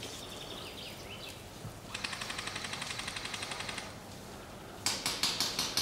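Airsoft gun firing: a rapid full-auto burst of just under two seconds, then a handful of quicker, sharper shots near the end.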